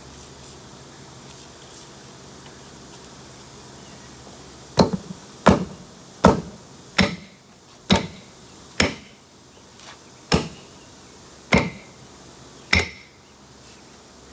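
Duckbill hammer striking a flat tire's bead next to the wheel rim to break it loose: about nine sharp blows, roughly a second apart, starting about five seconds in.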